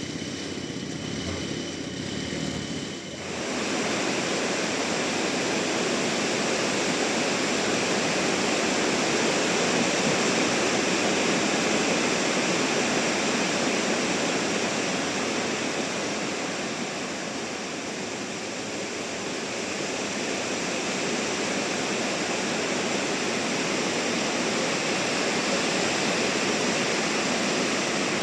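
Band sawmill cutting through a trembesi (rain tree) log: a steady, loud rushing noise that grows louder about three seconds in and holds.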